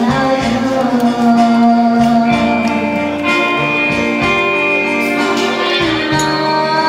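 Loud music playing, with long held melody notes over a shifting bass line.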